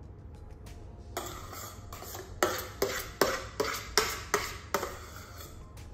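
A spoon scraping and tapping against a stainless steel mixing bowl while scooping out stiff meringue: a run of sharp clicks, about two or three a second, loudest in the middle.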